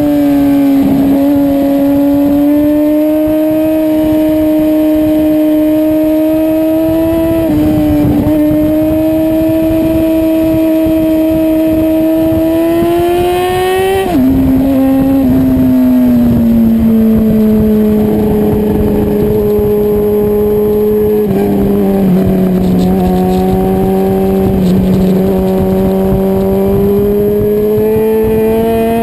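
Sport motorcycle engine running hard at high revs, heard from a camera mounted on the bike, with wind rushing past. The pitch creeps slowly upward, drops sharply about halfway through and again a few seconds later, and climbs near the end.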